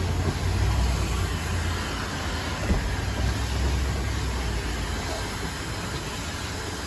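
Steady machine drone, a low rumble under a broad hiss, with a single click about two and a half seconds in.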